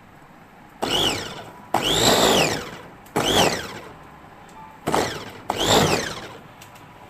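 Electric food chopper's motor run in five short pulses, each a whine that rises as it spins up and falls away as it stops.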